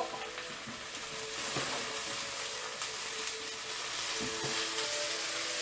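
Onion, garlic and spinach sizzling steadily in a frying pan on a glass cooktop, stirred now and then with a utensil.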